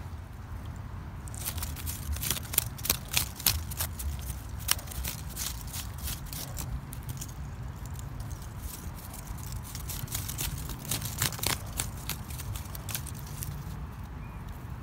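Irregular sharp clicks and scraping of rock chips and gravel as a geode embedded in a rock outcrop is dug and pried at with a stick, coming in two busy spells.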